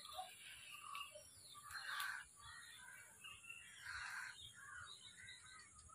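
Crows cawing faintly: a few short, harsh calls a couple of seconds apart.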